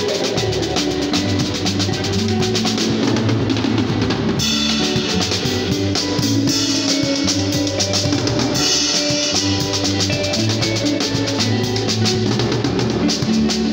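Drum kit played in a fast seben (Congolese soukous) groove, with dense snare, cymbal and bass drum hits. Under it run held low notes of accompanying music that change pitch every second or so.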